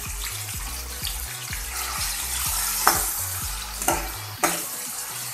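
Chopped tomatoes sizzling in hot oil in a metal karahi, stirred with a metal spatula that scrapes the pan and clinks against it a few times from about three seconds in.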